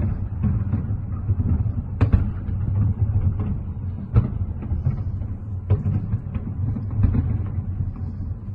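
Fireworks display going off in a continuous low rumble of bursts, with sharper cracks standing out about two, four and six seconds in.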